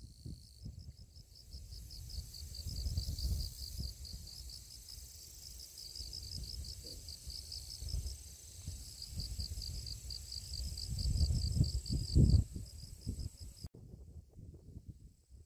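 Insects in the grass, crickets or katydids, giving a fast, steady pulsed chirping with a thin high whine above it. The chirping cuts off suddenly near the end. Under it, wind rumbles on the microphone, strongest shortly before the chirping stops.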